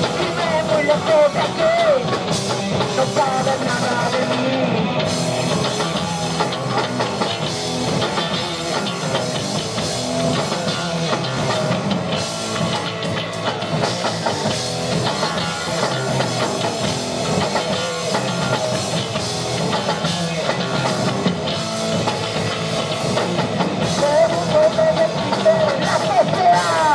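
Rock band playing live: electric guitar and drum kit driving a fast, loud song. A singer's voice comes in over it at the start and again near the end, with a mostly instrumental stretch in between.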